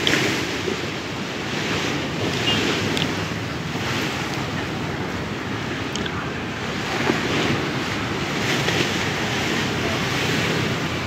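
Steady rushing outdoor noise that swells and fades gently.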